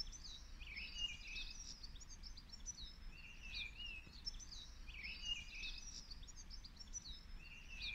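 Small songbirds chirping and twittering faintly, in clusters of quick sliding notes over a low background hiss.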